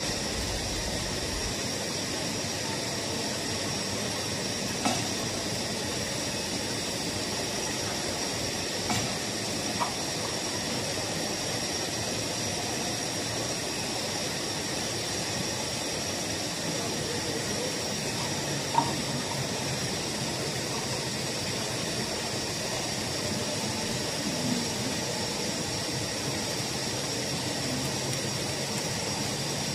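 3D printer filament extrusion line and its spool winder running: a steady mechanical hiss with a faint high whine, broken by a few brief clicks and knocks.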